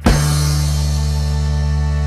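Music with heavy bass: a chord struck right at the start and held, ringing steadily.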